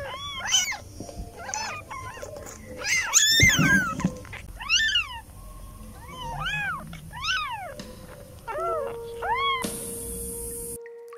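Newborn kittens mewing: a string of about nine short, high-pitched cries, each rising and then falling in pitch, the loudest cluster about three seconds in.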